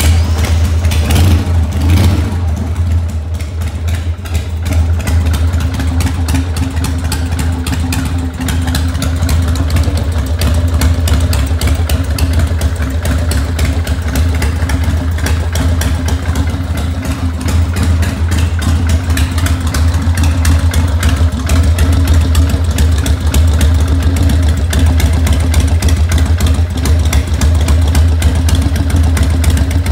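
1988 Harley-Davidson Sportster's air-cooled V-twin starting up, picking up briefly in the first couple of seconds, then idling steadily. This is its first run on fresh oil after a new oil tank was fitted.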